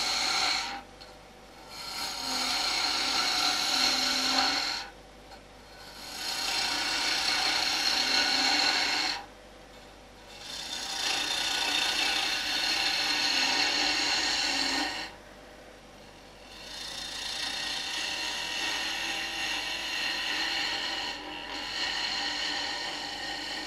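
A 1-inch high-speed-steel spindle roughing gouge cutting a spindle blank spinning on a wood lathe, shaping it into a cone. The cuts come in about five passes of three to four seconds each, with short quieter gaps between them.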